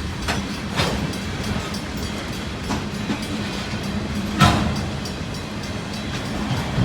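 Freight train passing: a steady rumble with a low hum, broken by irregular wheel clicks and knocks, the loudest about four and a half seconds in.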